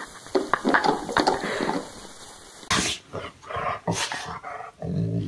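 A dog gnawing on a chew bone, with irregular clicks and scrapes; about halfway through, after a cut, another dog grumbling and groaning in drawn-out, low, pitched sounds that grow louder near the end.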